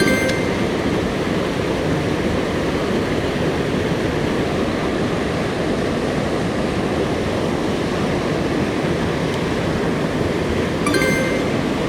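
Mountain stream swollen after rain, rushing steadily and loudly. A short click with a brief metallic ring is heard at the start and again near the end.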